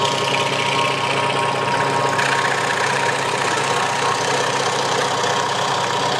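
Craftsman scroll saw running steadily with a number 5 reverse-tooth blade, cutting a slot through a plywood panel. A steady motor hum sits under the rattle of the reciprocating blade and arm.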